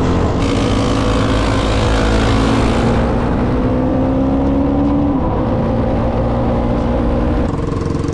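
Quad (ATV) engines running under way, one engine's pitch rising slowly and then dropping about five seconds in.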